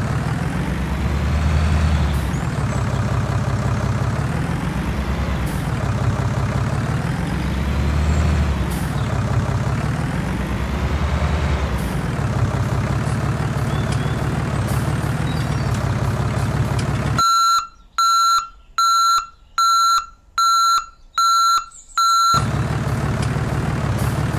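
Heavy vehicle engine sound running steadily, its pitch rising and falling every few seconds. About 17 seconds in the engine cuts out abruptly for about seven evenly spaced high reversing beeps, then the engine sound picks up again.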